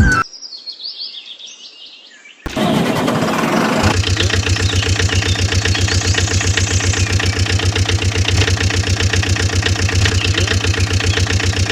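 Birds chirping briefly, then a small engine starts up about two seconds in and runs steadily with a fast, even beat.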